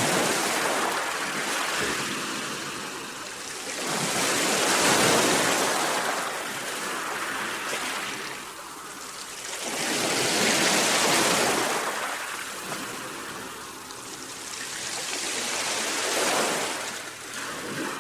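Sea waves breaking and washing on the shore, a steady rush of surf that swells and ebbs about every five or six seconds, with four surges.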